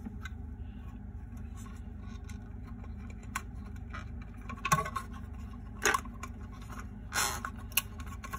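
Clear plastic display case being handled and pried at: a handful of sharp plastic clicks and short scrapes, spread over the second half, above a steady low hum.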